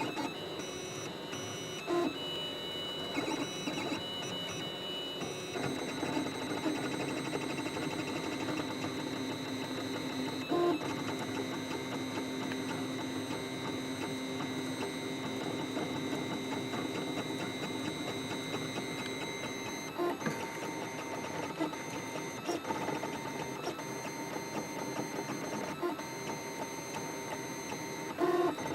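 3D printer running a print, its stepper motors whining in several steady tones that shift pitch a few times, with occasional light clicks.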